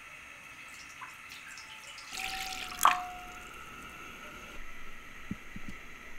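Water poured from a small clay bowl into a cast-iron pan, a splashing rush of about a second that ends in a sharp clink with a short ringing tone. A few small knocks follow near the end.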